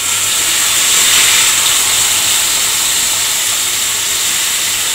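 Yogurt-marinated chicken pieces frying in hot oil in a kadhai: a loud, steady sizzle that swells about a second in and eases a little, with a wooden spatula stirring the pieces.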